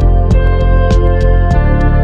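Background music: held instrumental tones over a light, regular tick about three times a second.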